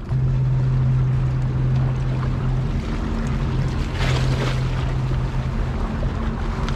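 Steady low drone of a boat engine on the water, with wind on the microphone and waves washing on the rocks; a brief rush of noise about four seconds in.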